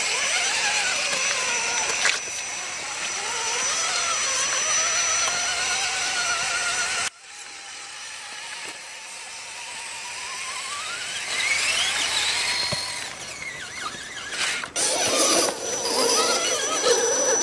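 Electric motors and drivetrains of radio-controlled scale rock crawlers whining, the pitch rising and falling with the throttle as the trucks crawl over rock. The sound changes abruptly twice, and one long rising whine comes a little past the middle.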